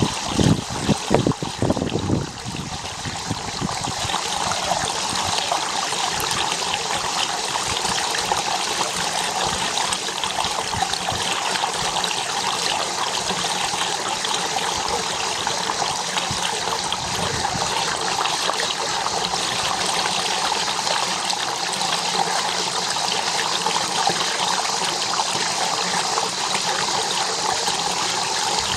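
Water running and trickling steadily, with a few low, irregular bumps in the first couple of seconds.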